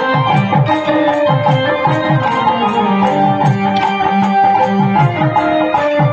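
Kolatam folk dance music: a fast, steady drum beat with low drum strokes that drop in pitch, a melody on top, and sharp clicks about three times a second.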